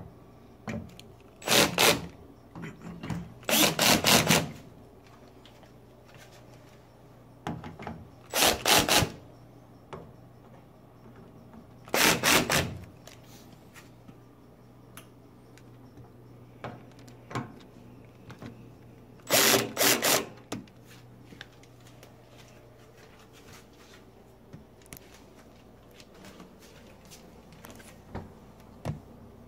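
Power screwdriver driving screws home in about five short bursts, each under a second, with small clicks of handling in between.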